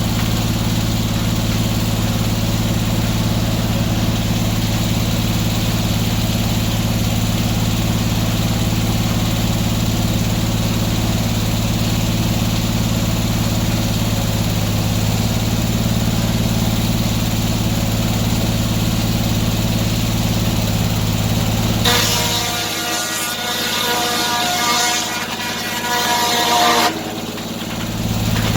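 Engine powering the antique sawmill, running steadily. About 22 seconds in, the low engine hum drops away and a higher whining, ringing sound with several steady tones takes over for about five seconds. The steady hum comes back near the end.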